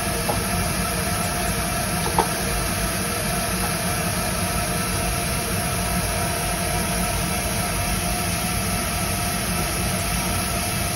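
LEGO MINDSTORMS Robot Inventor motors running steadily, spinning an egg between rubber-tyred wheels, a whir made of several steady tones. A light tap about two seconds in.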